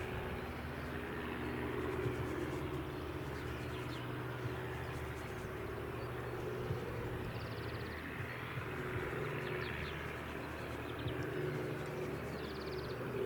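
Aircraft flying over, a steady distant drone with a low hum. A small bird gives two brief rapid trills, about five seconds in and again near the end.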